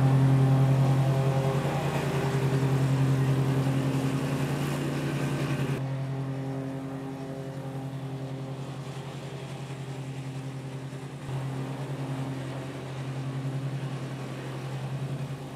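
Dixie Chopper Blackhawk zero-turn mower's 22-horsepower Kawasaki V-twin running steadily as the mower drives across the lawn. Its level drops abruptly about six seconds in and shifts again about eleven seconds in.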